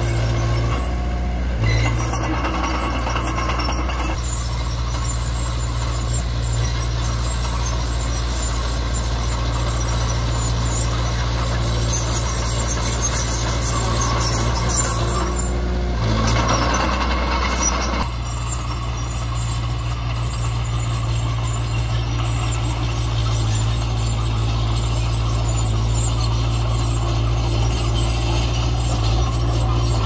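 Heavy diesel earthmoving machinery running steadily, a constant low engine note under clattering mechanical noise that briefly changes about two-thirds of the way through.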